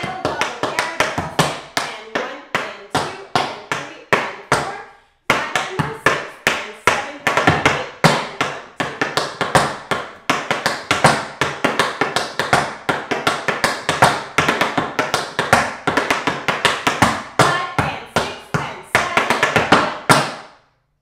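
Tap shoes striking the floor in a fast, rhythmic run of taps, a tap dance combination danced without music. The taps break off briefly about five seconds in, then continue until just before the end.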